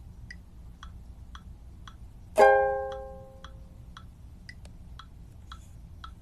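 Background music: a single plucked-string chord rings out about two seconds in and slowly fades, over a light ticking beat about two ticks a second.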